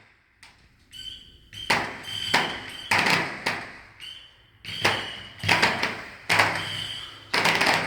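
Fireworks going off: about eight sharp bangs, roughly one a second, each fading quickly, with a short pause in the middle.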